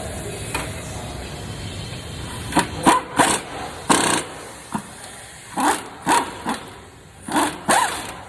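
Ratchet wrench with a 19 mm socket driving in the brake caliper bolts: a run of short ratcheting strokes, irregular, starting about two and a half seconds in, over a steady low rumble.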